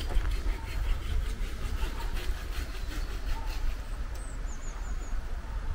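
Steady footsteps on a cobblestone path, with a low wind rumble on the microphone. A small bird chirps faintly a few times a little past the middle.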